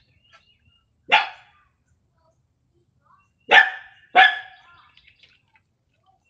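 A dog barks three times: a single bark about a second in, then two barks in quick succession a couple of seconds later.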